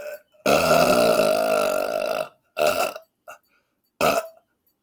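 A man's long, deliberate belch lasting nearly two seconds and holding a steady pitch, followed by three short bursts.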